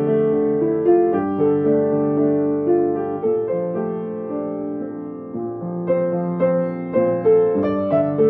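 Solo piano playing held chords with a melody over them, growing softer in the middle, then a series of more firmly struck chords from about six seconds in.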